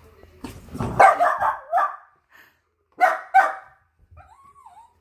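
Dachshund puppies barking in play: a loud run of barks about a second in, two sharp barks around three seconds, then a faint wavering whine near the end.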